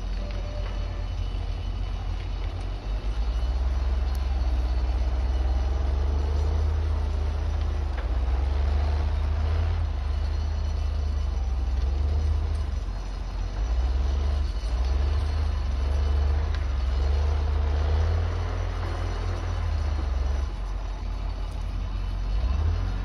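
Heavy machine engine running with a low rumble, getting louder about three seconds in and easing off briefly around the middle and again near the end.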